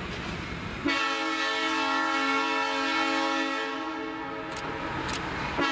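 Diesel train horn blowing one long steady chord, starting suddenly about a second in, sounding for a grade crossing as the train approaches. It breaks off briefly near the end and sounds again.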